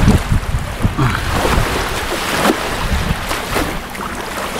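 Wind buffeting the microphone as an uneven low rumble, over the wash of shallow water along the shore, with a few short knocks from handling.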